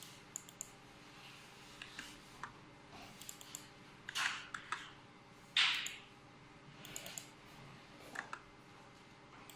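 Keys tapped on a computer keyboard and mouse clicks, sparse and irregular, with a couple of louder strokes around the middle, over a faint steady hum.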